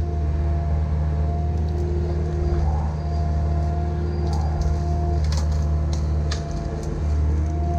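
Caterpillar 305 mini excavator working: its engine runs with a steady low rumble, under a whine that breaks off and comes back several times. A few sharp clicks or snaps come about five to six seconds in.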